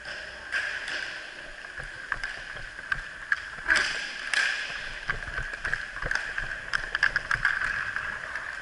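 Roller hockey play: inline skate wheels rolling on the rink floor with a steady whir, and hockey sticks clacking against the puck and the floor. The louder hits come about four seconds in, and a quick run of clacks follows near the end.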